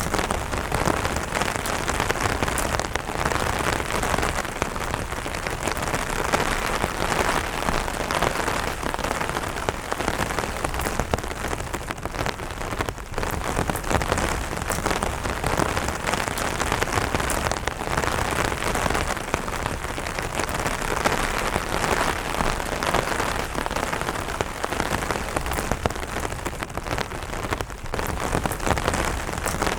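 Steady, moderate rain falling on an umbrella's fabric, a dense run of individual drop hits over an even wash of rain noise.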